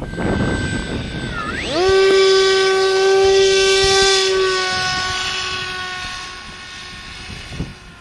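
Bixler 2 model plane's electric motor and pusher propeller whining. The pitch dips, then climbs sharply about two seconds in, holds steady as the motor revs up, and fades over the last few seconds.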